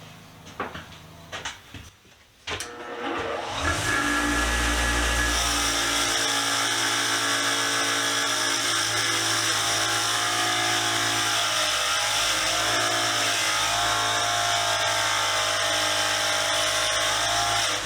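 A few clicks and knocks, then an electric wire wheel starts about two and a half seconds in and runs steadily, its pitch wavering slightly as rusty steel pliers are pressed against it to strip the rust.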